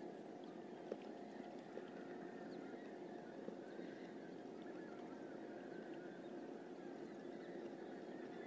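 Faint steady hum and water noise around a small outrigger boat on calm sea, with a few soft clicks as a fishing handline is worked by hand.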